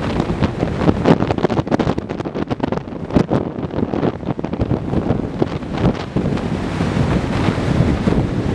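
Wind buffeting the microphone in gusts, crackling hardest in the first half, over the steady rush of a large waterfall.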